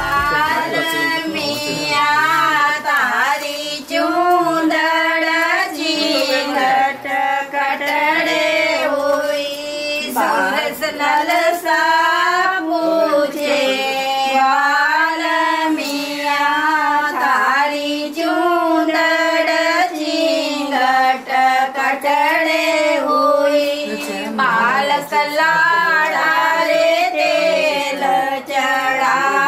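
Women's voices singing a melody in long phrases, with no instrumental backing.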